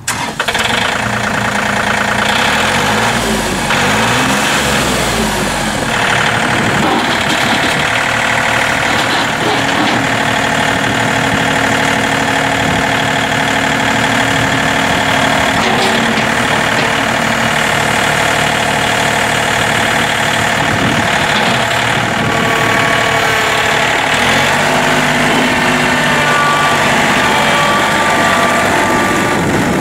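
John Deere 4105 tractor's three-cylinder turbo Yanmar diesel running as the tractor is driven, its note wavering in pitch over the first few seconds and then holding steady.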